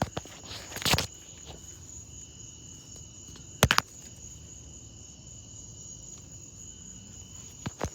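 Crickets chirping in a steady high trill, broken by a few sharp clicks, the loudest a quick pair about four seconds in.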